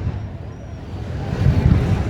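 Fireworks display heard between bursts: a low rolling rumble with a faint crackling hiss, swelling about a second and a half in.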